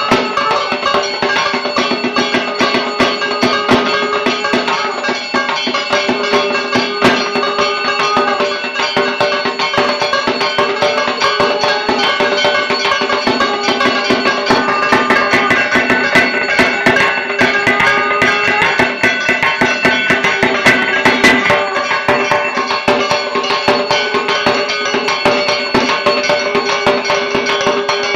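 Dhak drums played for a Durga Puja aarti in a fast, dense rhythm of strokes, over steady held tones.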